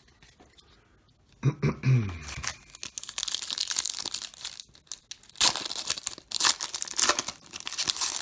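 Plastic wrapper of a baseball card pack being torn open and crinkled, starting about three seconds in, with several sharp rips.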